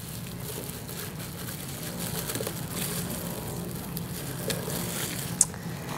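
Faint crackling and handling sounds of frozen bananas being broken apart by hand and dropped into a blender jar, over a steady low hum, with a short sharp tick near the end.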